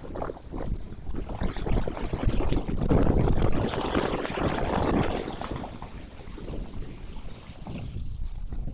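Rushing wind noise buffeting the microphone, gusting unevenly and swelling louder about a third of the way in.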